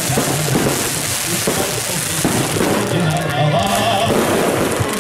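Music playing over the crackling and popping of a fireworks display.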